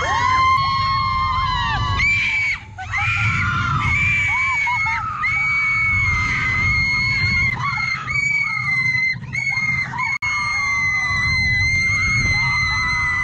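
Roller coaster riders screaming during the ride: long, high-pitched screams held for seconds at a time, several voices overlapping, over a low rumble.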